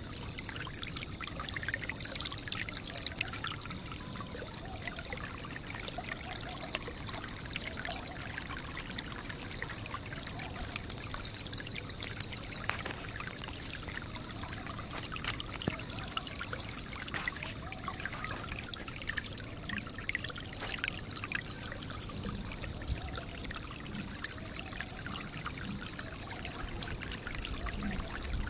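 Steady trickling and pouring water, like a small stream.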